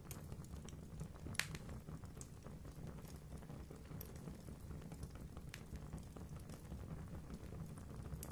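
Wood fire in a fireplace crackling: scattered sharp pops and snaps, the loudest about one and a half seconds in, over a steady low rumble.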